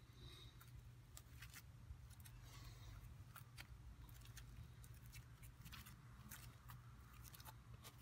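Faint, irregular sticky clicks and crackles of homemade clear-glue-and-salt slime being stretched and squeezed in the hands, over a low steady hum.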